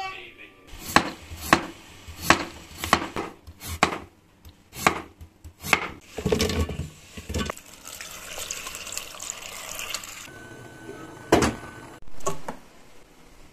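Raw potato slices knocking into a stainless steel pot, a run of sharp knocks about twice a second, followed by a few seconds of water-like hiss.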